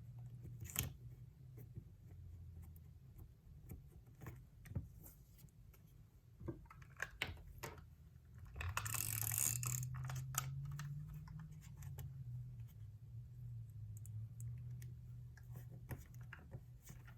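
Close-up crafting sounds: scattered small clicks and taps as a double-sided crafter's tape runner is run along paper cut-outs, over a low steady hum. About nine seconds in there is a loud paper rustle lasting a little over a second.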